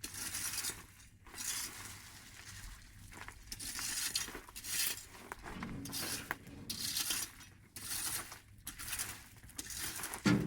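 Irregular bursts of rustling and scraping, roughly one a second, over a faint low hum.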